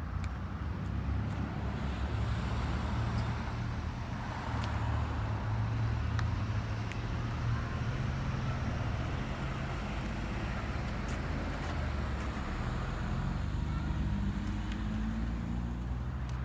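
Road traffic: cars passing, their tyre noise swelling and fading over a steady low rumble.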